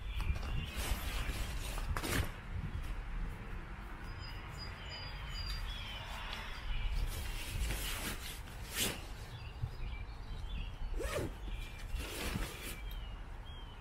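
Rustling and handling of nylon tent stuff sacks and a carry bag, in short scattered bursts, over a steady low rumble of wind on the microphone.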